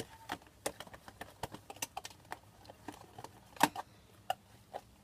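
Homemade slime being squished and stretched by hand, making irregular sticky clicks and pops, several a second, one louder pop past the middle.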